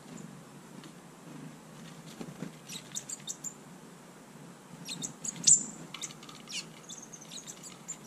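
Tits at a seed feeder giving short, high chirps and clicks, a few around three seconds in, then a quicker run of them through the second half with one loud chirp a little past halfway.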